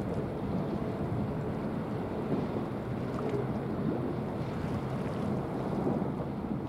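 Steady waterfront ambience: wind buffeting the microphone over the wash of the sea, with a low, even rumble underneath.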